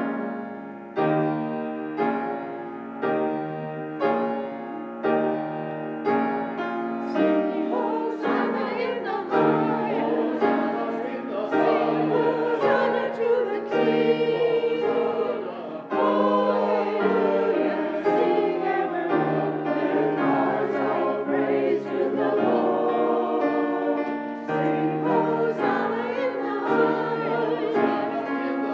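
Piano playing chords struck about once a second as an introduction, then a choir comes in singing with piano accompaniment about seven seconds in.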